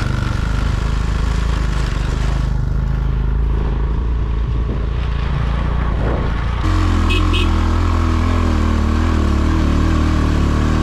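Motorbike taxi engine running steadily while climbing steep hills, growing louder about two-thirds of the way in, with two short high beeps just after.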